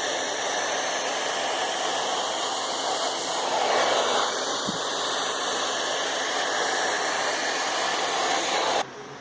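Hand-held hair dryer blowing steadily on its hot setting, its air stream played over a wrinkled dress to smooth it. It switches off suddenly near the end.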